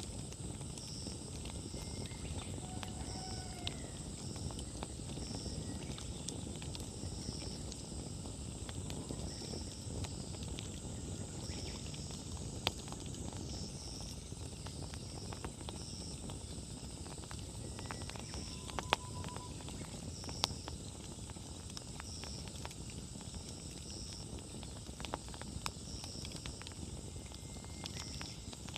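Wood bonfire burning: a low, steady rush from the flames with scattered crackles and a few sharper pops. A high chirp repeats about once a second over a steady high hum.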